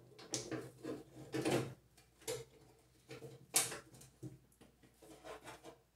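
Light metal clicks and clinks of a mower-deck brake arm, spring and bushing being handled and fitted by hand: a handful of short, separate knocks, the sharpest about three and a half seconds in.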